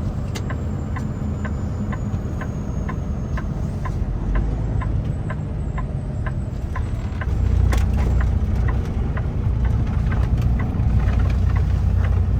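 Kenworth semi truck's diesel engine running low while the turn signal clicks about twice a second during a left turn. The engine grows louder about halfway through as the truck pulls on through the corner.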